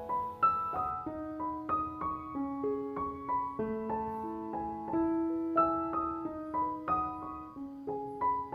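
Background piano music: a gentle melody of single notes over held lower notes.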